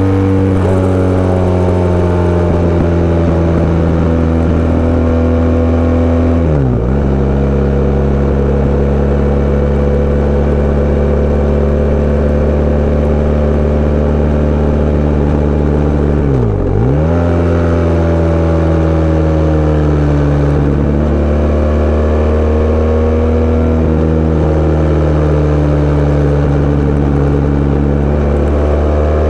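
Sport bike engine running steadily under way, its revs slowly sinking and rising. Twice, about 7 and 17 seconds in, the revs drop sharply and come straight back up.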